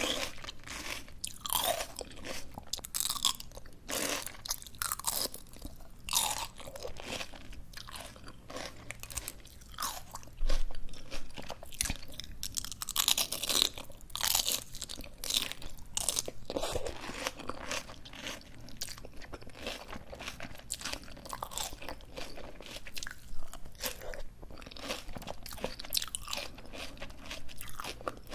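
Close-miked chewing of crisp raw greens: dense, irregular wet crunches and bites, with a louder crunch about ten seconds in.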